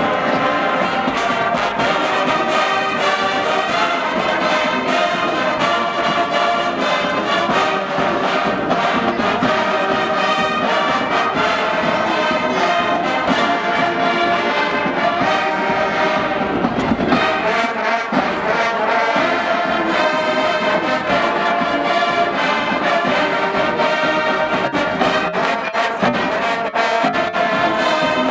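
Brass-heavy band playing a tune, with trombones and trumpets prominent.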